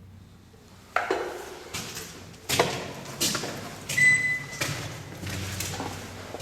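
A series of sharp knocks and thuds, about one a second, with one strike about four seconds in ringing briefly like metal.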